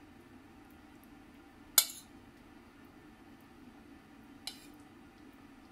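A metal spoon clinking against the dishes while curry is served: one sharp clink about two seconds in and a fainter one near the end, over a low steady hum.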